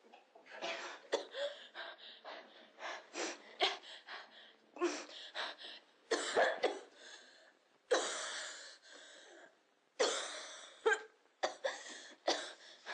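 Women coughing in repeated fits, many short coughs in quick succession with brief gaps between, and two harder coughs about eight and ten seconds in.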